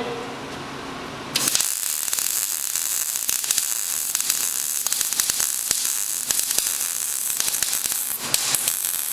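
Wire-feed (MIG-type) welding arc laying a bead on a steel-tube frame joint: a crackling hiss that strikes up about a second and a half in, breaks off briefly near the end, then restarts.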